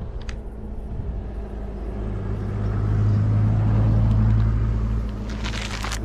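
A low steady rumble with a hum in it, swelling louder in the middle and easing off again, with a brief hiss shortly before the end.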